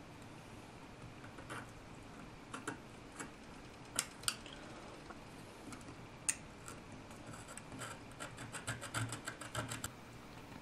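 Small scratches and clicks of a craft knife blade cutting a segment of copper track out of a circuit board to leave a gap in it, scattered at first with a quicker run of scratching near the end.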